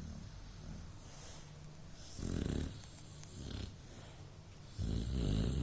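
A beagle snoring in its sleep: loud rasping snores about two and a half seconds apart with softer breaths between, the last one longer.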